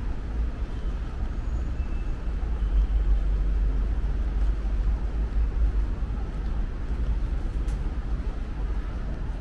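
Wind buffeting the microphone: a steady, uneven low rumble, over faint outdoor background noise.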